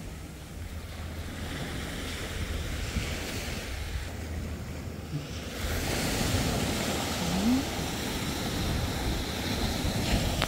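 Sea waves washing against the shore, with wind buffeting the microphone; the surf grows louder about six seconds in.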